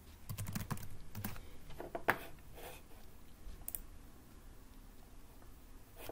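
Computer keyboard being typed on: a quick run of keystrokes, then one sharper keystroke about two seconds in, followed by a few scattered clicks.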